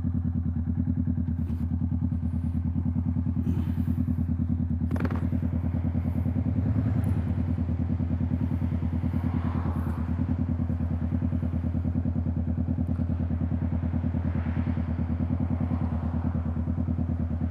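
Yamaha motorcycle engine idling steadily at an even pitch, with a few faint knocks.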